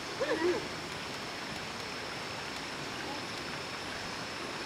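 Steady rushing of flowing water, an even hiss with a faint steady high tone above it. A brief voice sounds just at the start.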